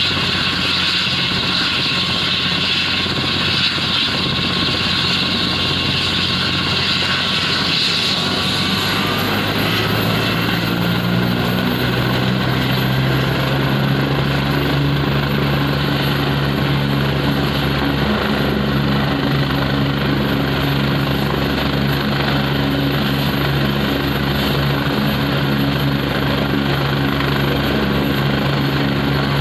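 Helicopter turbine engine and main rotor running on the ground. About eight to ten seconds in, the turbine whine rises in pitch and the rotor's low beat grows louder as the rotor spools up, then both hold steady.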